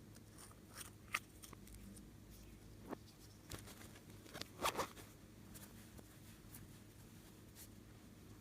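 Slime being handled by hand, giving scattered small sticky clicks and crackles, with a short cluster of louder ones a little past the middle.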